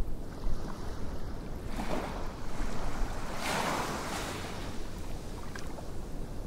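Wind buffeting the microphone on a high open lookout, a steady low rumble with two stronger hissing gusts, one about two seconds in and a longer one around three and a half to four seconds.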